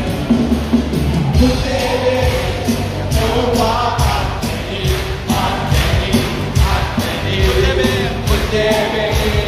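Worship song: voices singing over a band with bass and a steady drum beat.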